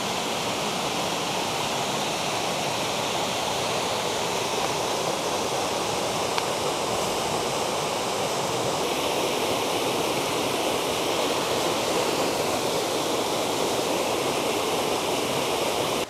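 Waterfall rushing steadily, water pouring down over rocks into a pool below.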